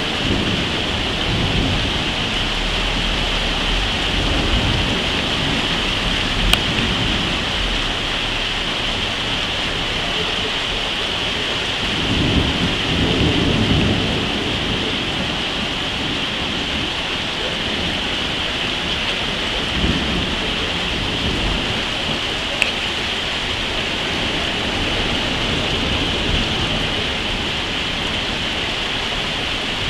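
Thunderstorm: steady heavy rain hissing, with low rolling thunder swelling up several times, loudest about twelve to fourteen seconds in. Two brief sharp clicks stand out, one about six seconds in and one near twenty-three seconds.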